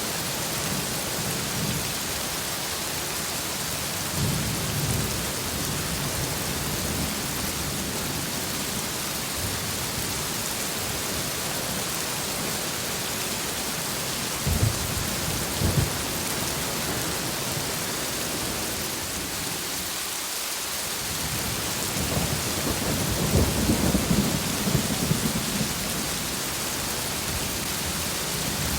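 Steady heavy rain with thunder: low rolling rumbles at the start, about four seconds in and again in the last several seconds, and two sharp cracks about halfway through.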